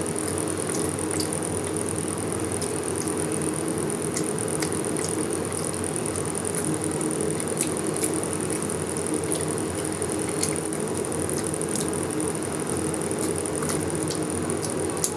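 Eating sounds: scattered small clicks of chewing and handling food, over a steady background hum with a high whine.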